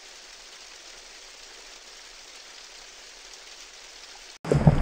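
Steady soft hiss like light rain or lapping water. Near the end it cuts off abruptly and a much louder rumble of wind on the microphone takes over.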